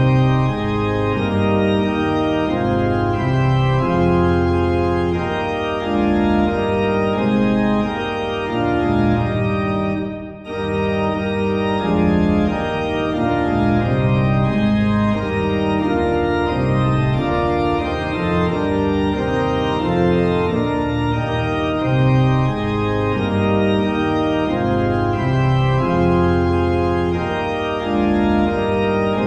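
Organ playing a hymn accompaniment in sustained full chords over a low bass line, changing chord about every half second or so. A short pause about ten seconds in marks the break between verses.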